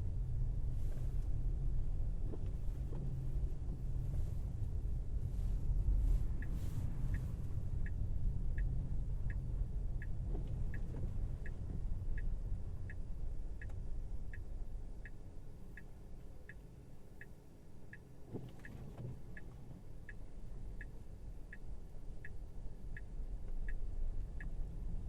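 Tesla Model Y cabin: steady low road and tyre rumble while driving. From about six seconds in, an evenly spaced ticking comes in at about one and a half ticks a second, like a turn-signal indicator. The rumble eases off for a while past the middle as the car slows, then builds again.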